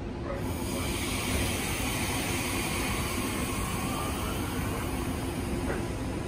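Inside a stationary Transperth electric train carriage: a steady hiss from the train's onboard equipment sets in about half a second in, over a low hum.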